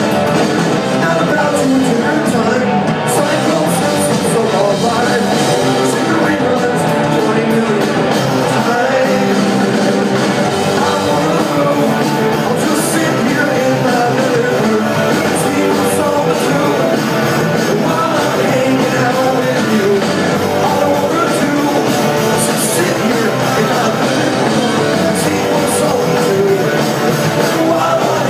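Punk rock band playing live at full volume: electric guitar, bass and drums with a sung lead vocal, loud and unbroken.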